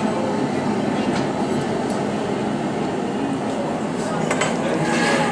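Steady low roar of a glassworks furnace and burners, with a few light clicks of steel tools on hot glass.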